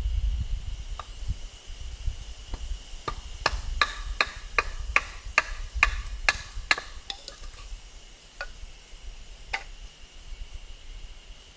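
Firewood being split: a quick, even series of sharp wooden knocks, about two or three a second for several seconds, then a few scattered single knocks.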